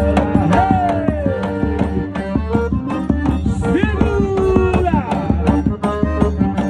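Forró band playing: a brisk, even drum beat under held melody notes, with a few sliding notes.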